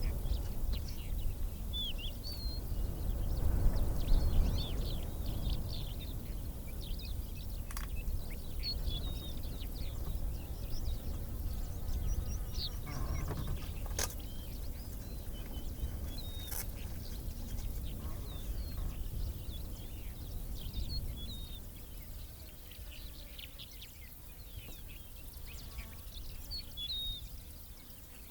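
Wild birds chirping and calling in many short, high notes, over a steady low rumble that swells about four seconds in. Two sharp clicks sound near the middle.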